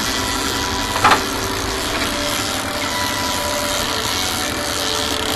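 Fishing boat's engine running steadily under wind and water noise, with one sharp knock about a second in.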